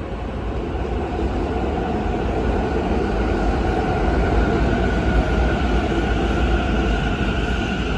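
Taichung MRT Green Line electric metro train running into the station: a steady rumble of wheels on rail that grows gently louder toward the middle, with a faint high whine over it.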